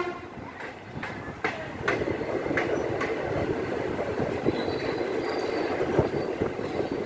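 Passenger train running on the rails: a steady rumble, with a few sharp clacks of wheels over rail joints in the first three seconds.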